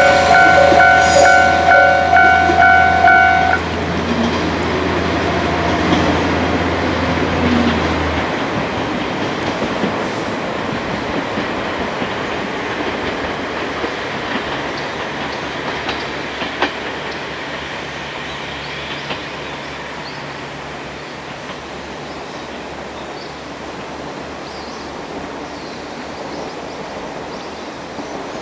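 A KiHa 40-series diesel railcar pulling away and receding: its engine and wheel-on-rail noise fade slowly, with an occasional click from the rails. A warning bell dings rapidly at the start and stops about three and a half seconds in, and the low engine hum drops away about eight seconds in.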